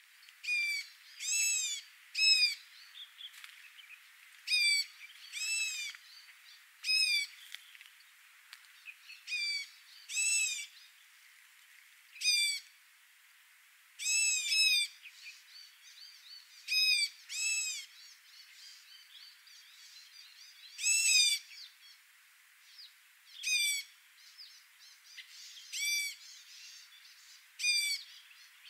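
An animal calling repeatedly: short, clear, high calls that each rise and fall in pitch. They often come two in quick succession and repeat every one to three seconds.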